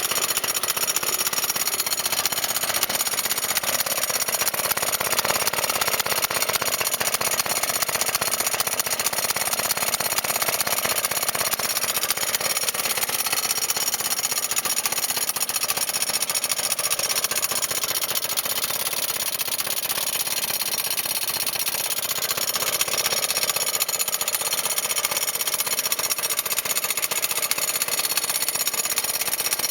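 Small petrol engine of a vintage Acto lawn mower running steadily.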